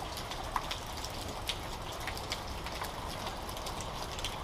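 Steady rain falling outside, with scattered drips ticking irregularly.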